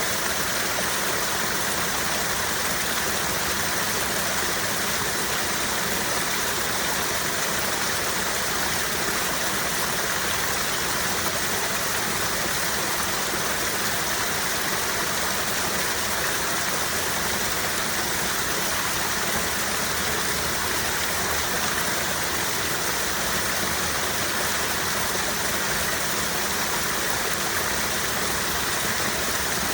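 Mountain stream flowing over rocks: a steady, even rushing of water with no breaks.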